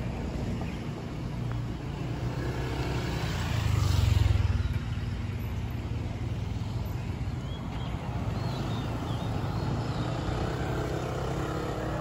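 Street traffic: a steady low rumble, swelling about four seconds in as a vehicle passes close by.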